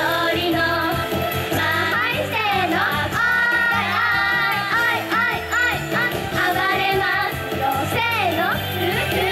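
Japanese idol-pop song: a group of girls singing into handheld microphones over backing music.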